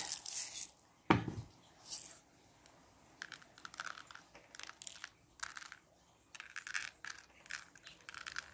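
Coarse salt being handled over watercolour paper: a single thump about a second in, then a run of short, dry, scratchy rustles as the grains are scattered and moved about on the paper.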